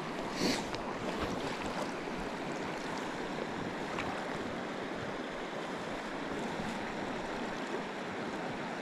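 Shallow river current running over and around rocks, a steady rush of water, with a brief rustle about half a second in.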